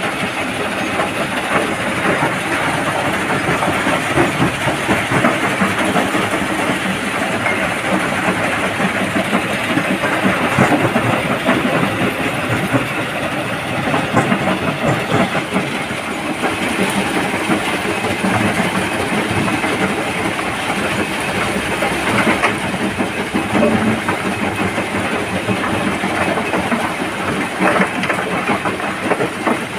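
Stone crusher running, with a continuous dense clatter and rattle of rock being broken, and a Komatsu PC200 excavator's diesel engine working alongside.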